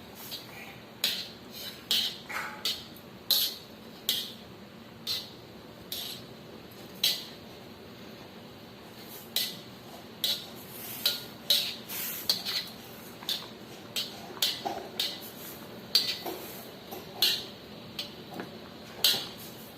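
Kitchen utensils clinking against dishes or a pot in a series of short, sharp clicks and knocks at an irregular pace, about one or two a second.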